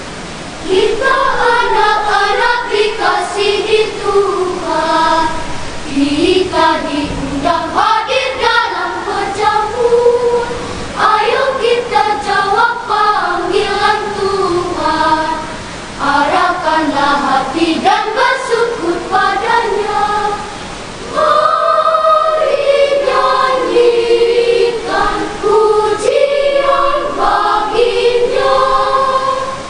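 Children's choir singing in parts, phrase after phrase with short breaks between them.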